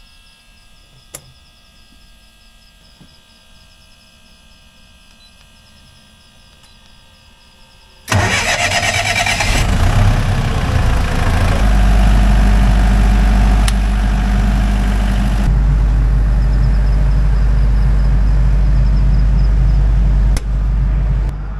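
Generator engine starting: after a faint stretch it catches suddenly about eight seconds in and then runs steadily with a strong low hum. Near the end its sound dips and settles at a lower level.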